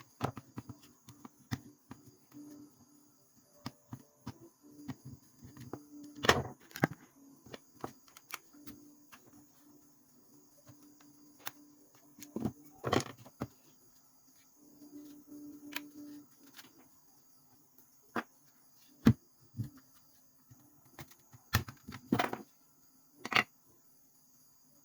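Scattered clicks and knocks of a plastic hair dryer housing and hand tools being handled as the dryer is taken apart, with a handful of sharper knocks standing out.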